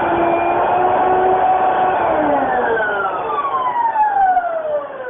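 Kenmore Heavy Duty Plus twin-fan vacuum cleaner motor running with a steady whine, then switched off about two seconds in, its pitch falling steadily as the motor winds down.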